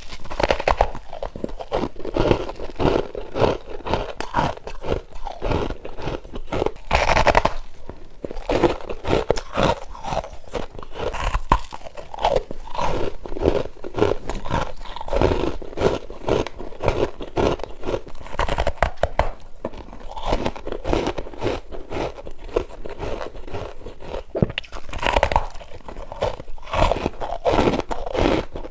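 Freezer frost ice being bitten and chewed by the mouthful: dense, rapid crunching, heaviest about seven seconds in and again near the end.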